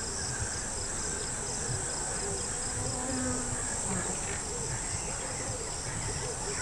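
Steady, high-pitched drone of insects, with a rapid pulsing chirp just beneath it.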